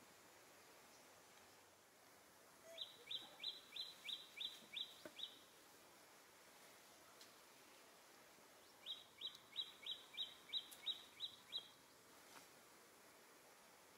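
A bird calling: two runs of about nine quick, high notes, about four a second, each note dipping in pitch, with a pause of a few seconds between the runs.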